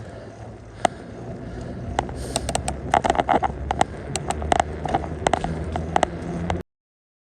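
A bicycle being ridden, rattling with irregular sharp clicks and knocks over a low rumble that grows louder from about two seconds in. The sound cuts off suddenly near the end.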